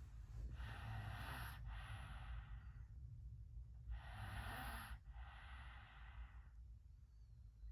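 A sleeping person's heavy breathing: two breaths about three and a half seconds apart, each a rush of air in and out, with no loud pitched snore.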